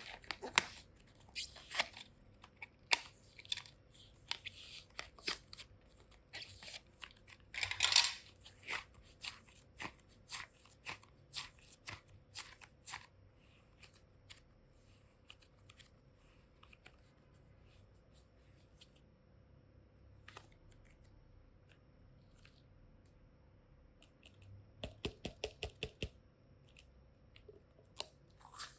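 Close-up hands handling toy suitcase boxes and the clay and slime packed in them: scattered clicks, crackles and taps, with a louder crinkling burst about eight seconds in. After a quieter stretch comes a quick run of clicks near the end.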